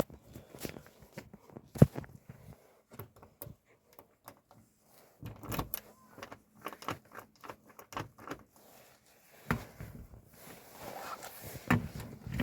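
A front door being closed and locked with a keypad deadbolt: an irregular run of clicks, knocks and rattles, with sharper knocks about two seconds in and a louder cluster near the end.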